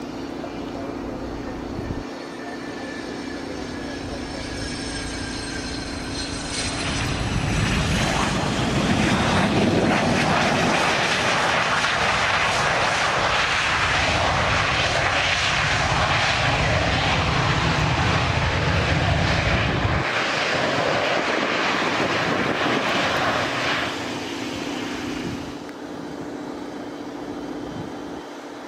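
Business-jet turbofan engines on the runway. A whine falls in pitch for the first several seconds, then a much louder jet roar builds about seven seconds in as a jet rolls close past, holding for around fifteen seconds before easing off.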